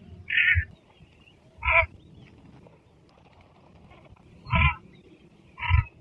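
Southern pochard (red-eyed pochard) calling: four short calls, two in the first two seconds and, after a longer pause, two more about a second apart near the end.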